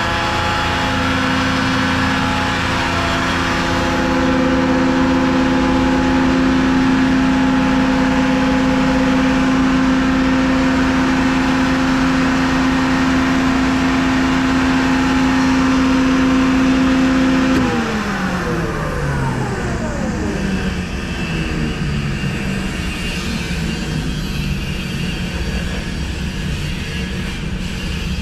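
CompAir Cyclon 6100 100 HP rotary screw air compressor running with a steady hum and whine; about 18 s in, its pitch falls steadily over several seconds as the machine winds down, and it keeps running at a lower pitch.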